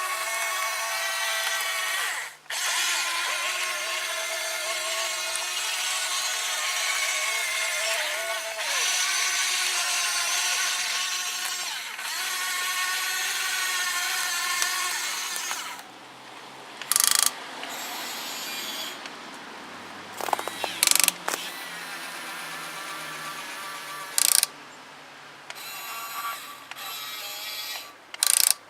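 Electric motors and gearboxes of a HuiNa 1550 RC metal excavator whining as its functions run. The whine is steady and loud for about the first half. After that it drops to a lower hum broken by several short, sharp bursts of motor noise.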